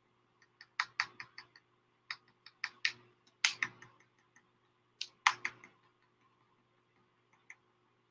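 Irregular light clicks and taps in short quick clusters, thinning out to a few faint ones over the last couple of seconds.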